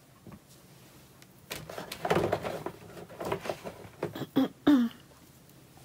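Washi tape rolls being handled: rustling with small clacks and taps as rolls are picked up and put down, starting about a second and a half in.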